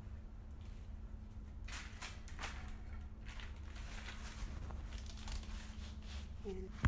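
Rustling and light clicks from handling the metal pole and parts of a garment rack, over a steady low hum. Near the end, a short squeak and a sharp knock as the phone camera is moved.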